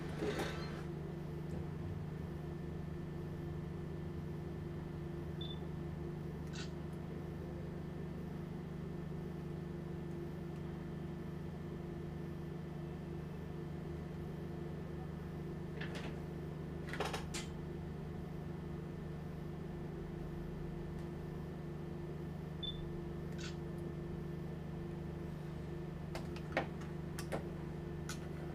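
A steady low electrical hum, with a few light clicks and taps scattered through it, like small tools or parts being handled on a workbench.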